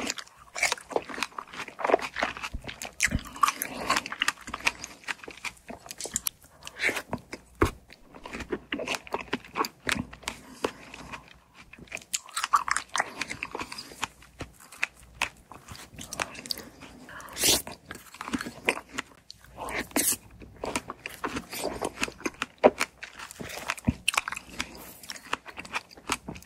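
A person biting and chewing fresh strawberries with whipped cream close to the microphone: a steady run of irregular wet bites, clicks and mouth sounds.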